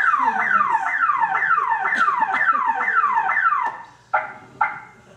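Electronic alarm rigged to a stage curtain, tripped: a rapid series of falling sweeps, about two and a half a second, that cuts off a little under four seconds in, followed by two short chirps.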